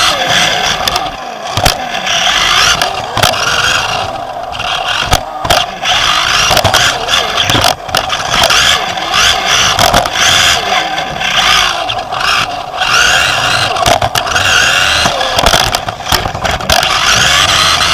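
Onboard sound of a Team Associated B5M 2WD electric RC buggy racing: its motor and gears whine up and down with the throttle, the tyres scrabble on the clay, and the chassis clatters with sharp knocks from bumps and landings.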